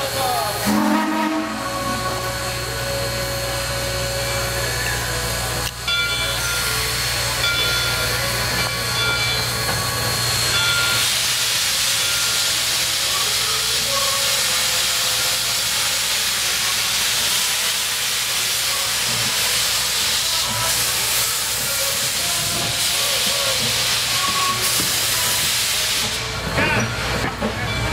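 2-8-2 Mikado steam locomotive #142 getting its train under way. There is a short whistle toot about a second in over a steady low hum. From about ten seconds in, a loud, steady hiss of steam blows from the open cylinder cocks as it starts pulling out, fading near the end.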